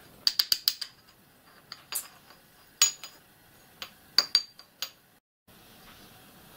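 Machined steel crosshead blocks clinking against each other and the vise as they are handled: a quick run of sharp, ringing metallic clinks, then single clinks spread over the next few seconds.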